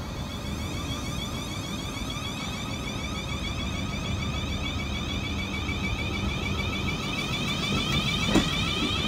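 Class 444 Desiro electric multiple unit accelerating away from the platform: a whine of several gliding electric traction tones over the rumble of wheels on rail, growing louder. A single sharp knock comes near the end.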